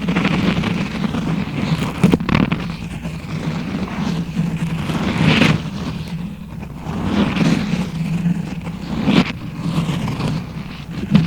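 Close-miked ASMR scalp-massage sounds: rubbing and scratching right against the microphone, swelling and fading every second or two, with a few sharp clicks.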